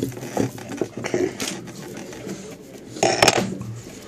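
Clinks and light knocks from a wooden toy crib frame and its pegs being handled as cord is strung and pulled tight across it. They come in a few short clusters, the loudest about three seconds in.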